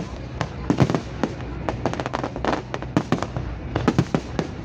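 A fireworks display going off: many sharp bangs and crackles in quick succession, several a second.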